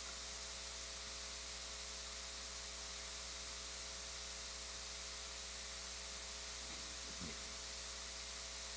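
Steady hiss and low electrical hum of the microphone and sound system, with no speech, and one faint brief sound about seven seconds in.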